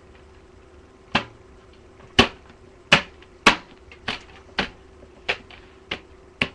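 A run of sharp knocks and clacks, about nine in all, beginning about a second in and coming every half second to second: the desktop computer case's back panel being knocked and pushed into its notches on the case.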